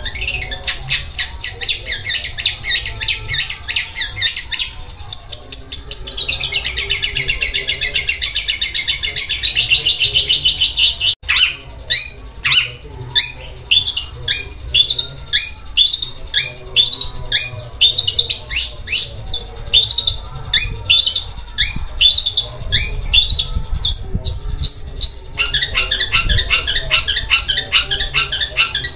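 Long-tailed shrike (cendet) singing a rough, rapid, rattling song likened to a sewing machine. It opens with fast chattering, holds a dense buzzy trill around the middle, then gives separate downward-sliding notes about two a second before the fast rattle returns near the end.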